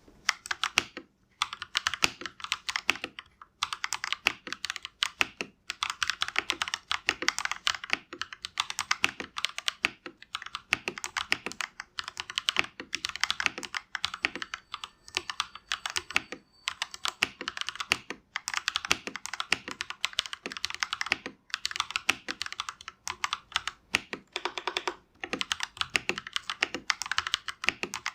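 Fast typing on a GAMAKAY LK67 mechanical keyboard fitted with Akko Lavender Purple tactile switches: a dense clatter of keystrokes in runs of a few seconds, broken by brief pauses.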